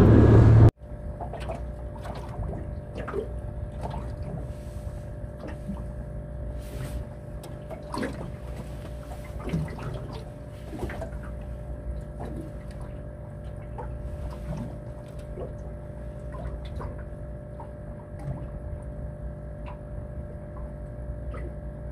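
A boat running under way for less than a second, cut off abruptly; then water lapping and dripping against the hull of a small drifting aluminium boat, over a steady low hum, with scattered light ticks and knocks.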